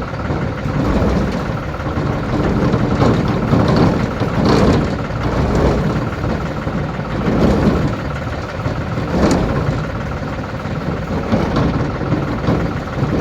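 An engine running steadily, its level rising and falling slightly, with a couple of short sharp knocks.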